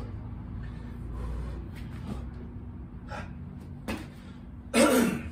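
A man breathing hard between burpee reps, with faint scuffs and a click, then a loud effortful exhale near the end as he drops down into the next rep.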